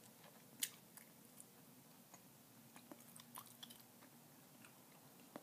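Very quiet gum chewing: a few soft, scattered mouth clicks, the clearest about half a second in.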